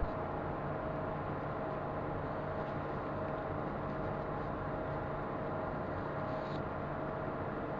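Car engine idling steadily, an even hum with no creaks or knocks.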